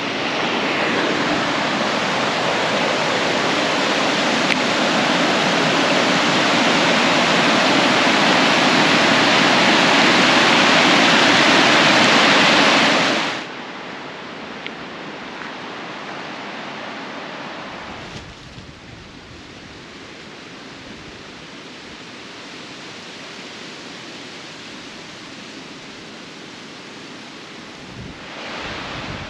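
Shallow river water rushing steadily over a low concrete crossing and rocks, cutting off suddenly about thirteen seconds in. After that a fainter steady water sound remains, with gusts of wind buffeting the microphone from the middle on.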